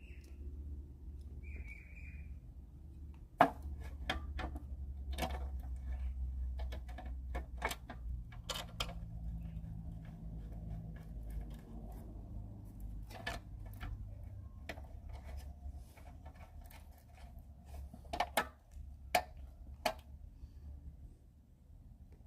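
Irregular metal clicks and knocks as lawnmower engine parts and screws are handled and fitted, over a low steady rumble. A bird chirps briefly near the start.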